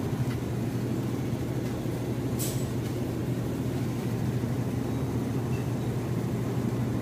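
Steady low rumble of a car's engine and road noise heard inside the cabin, with a brief hiss about two and a half seconds in.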